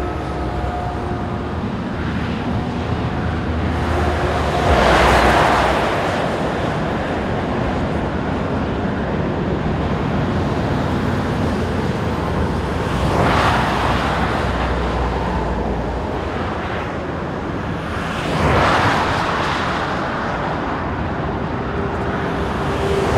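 Motorway traffic: a steady wash of tyre and engine noise, with three vehicles passing close, about five, thirteen and nineteen seconds in.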